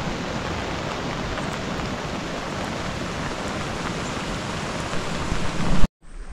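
Steady heavy rain falling, a constant hiss that swells slightly and then cuts off suddenly near the end.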